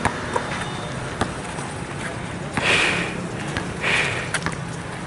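Basketball bouncing now and then on an outdoor concrete court over a steady hum of city traffic, with two short, loud breaths close to the microphone about two and a half and four seconds in.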